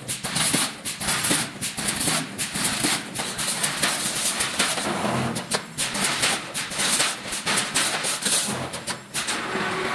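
A pneumatic wire mesh welding machine welding cross wires onto line wires: a fast, irregular run of sharp clacks and metallic rattles. The clatter gives way to a steadier noise near the end.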